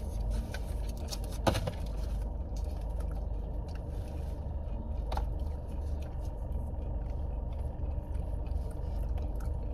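Steady low hum of a car heard from inside the cabin, with a few small clicks and scrapes of a plastic fork and plastic food cup being handled, the sharpest click about a second and a half in.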